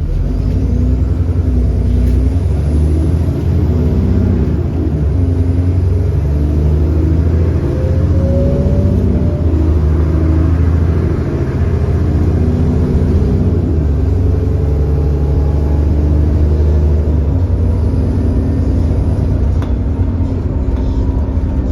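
Alexander Dennis Enviro400 bus's 6.7-litre Cummins ISB diesel engine pulling through the ZF Ecolife six-speed automatic gearbox, its note climbing in pitch and dropping back at each gear change, a few times over. The engine has an exhaust leak.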